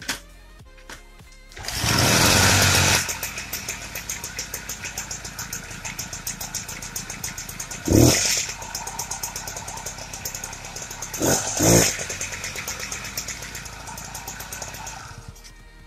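Peugeot 101 moped's small two-stroke engine starting with a loud burst about two seconds in, then running with a fast, even putter and revved briefly twice, before cutting out near the end. This is a test run after the clutch has been cleaned and the drive belt refitted.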